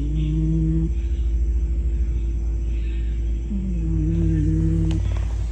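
A sleeping pet snoring loudly: a steady low rumble, with two drawn-out moan-like tones that slide down and then hold, one ending about a second in and another starting past the middle.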